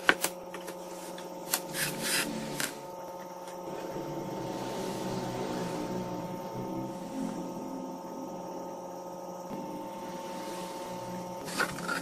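Soft ambient background music of slow, sustained drone-like tones that shift gently, with a few light knocks in the first few seconds and again near the end.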